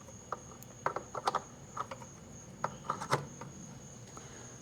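A string of irregular light clicks and knocks, about a dozen, spread over the first three seconds, the loudest about three seconds in, over a faint steady high-pitched tone.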